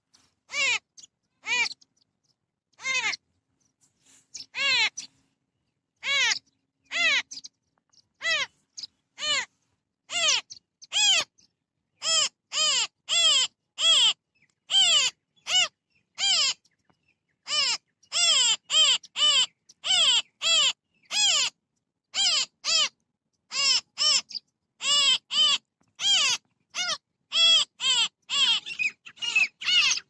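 Babblers in a foraging flock calling: a string of short calls, each rising then falling in pitch. They come sparsely at first, then from about ten seconds in quicken to roughly two a second.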